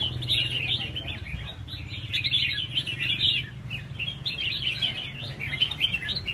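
Several caged red-whiskered bulbuls singing at once, a dense run of quick, overlapping chirping phrases that never pauses.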